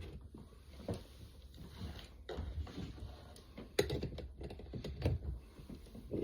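Scattered light clicks and soft knocks of small objects being handled, over a steady low hum.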